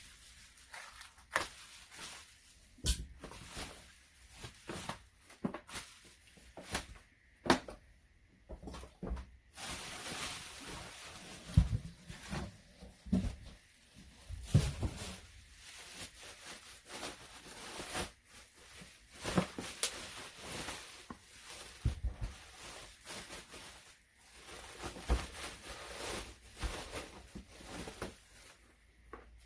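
Parcel being handled and unpacked: scattered knocks and clicks, with a longer stretch of rustling packaging from about ten seconds in.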